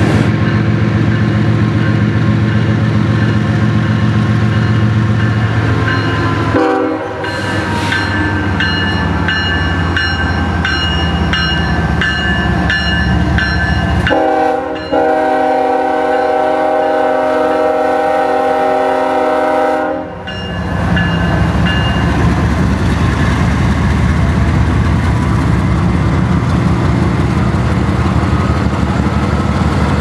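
Norfolk Southern GE ES44DC diesel locomotives passing close by, engines running with a deep steady drone. The lead unit's air horn sounds a short blast about seven seconds in, then a long blast of about six seconds around the middle.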